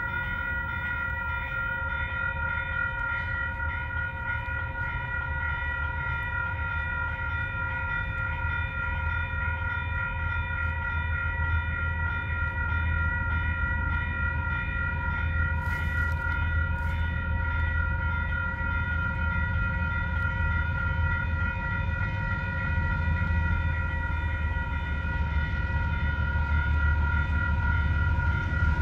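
Level crossing alarm sounding with a steady high ringing tone, over the low rumble of an approaching diesel freight train led by DXR and DFM diesel-electric locomotives. The rumble grows louder as the train nears.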